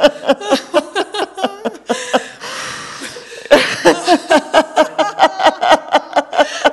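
A woman laughing heartily, a quick, even run of ha-ha pulses about five a second. About two seconds in it breaks for a long breathy in-breath, then the laughter picks up again.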